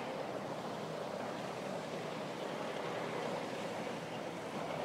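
Steady harbour ambience: harbour water washing against the seawall, with a faint low hum of boat engines.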